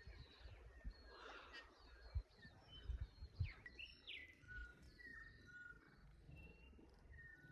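Faint outdoor birdsong: short whistled notes and chirps from several birds, a few sliding in pitch, with low wind rumble on the microphone.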